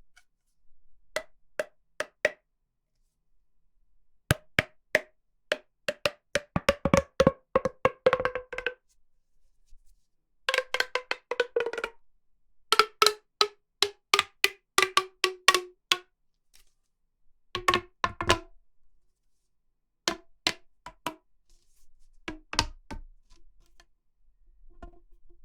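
Runs of quick, hollow, pitched knocking clicks like a wood block, made as foley for a washing machine hose, with short pauses between runs and the pitch sinking a little over the later runs.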